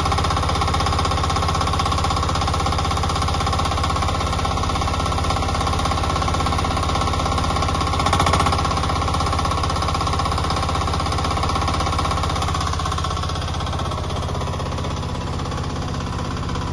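Mini excavator's small air-cooled engine running steadily under digging load with a rapid, even beat. There is a brief rise about eight seconds in.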